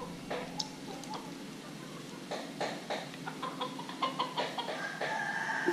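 Mắm nêm, a thick fermented fish sauce, poured from a plastic bottle into a ceramic bowl: irregular small glugs, drips and splashes.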